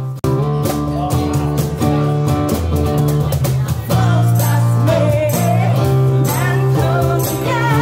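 Live acoustic music: a strummed acoustic guitar over steady low bass notes, with a brief break just after the start. A voice sings with vibrato from about four seconds in.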